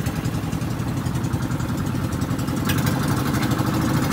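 A motorized outrigger boat's engine running steadily at cruising speed, an even low engine note with no change in pace, and a faint tick near the end.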